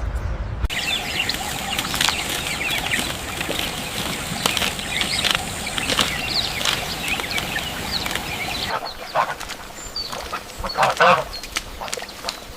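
Bird wings flapping amid a busy stretch of many short, high sounds. About eight seconds in it cuts to a quieter clip, with a few louder calls near the end.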